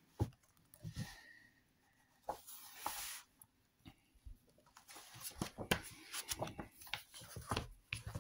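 Glossy pages of a large illustrated hardcover book being turned by hand. There is one longer paper swish a little before the middle, then a run of light crackles and taps as the pages are flipped and smoothed flat.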